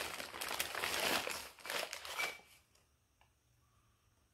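Newspaper packing paper crumpling and rustling as a wrapped ceramic piece is unwrapped by hand. The sound cuts off suddenly about two and a half seconds in.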